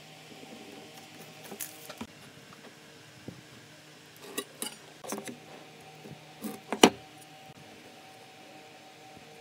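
Scattered light clicks and knocks of hand measuring tools (an aluminium square, a steel ruler and a pen) being set down and positioned on a wooden workbench, the sharpest knock about seven seconds in, over a faint steady hum.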